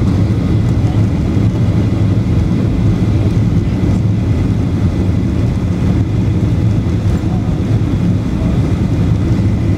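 Steady cabin noise of a jet airliner moving along the ground: a constant low drone from the engines and wheels, with a faint steady high whine over it.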